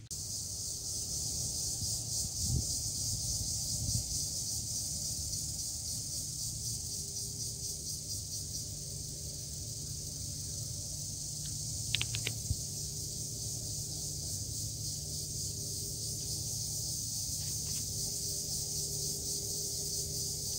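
Steady high-pitched insect chorus with a fast, even pulse, over a low steady hum. A few short chirps come about twelve seconds in.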